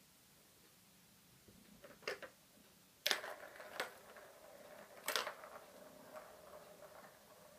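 A kitten swatting the balls in a three-tier plastic ball-track tower toy gives sharp plastic clacks about two, three and five seconds in. From the third second a ball runs round the plastic track with a steady hum.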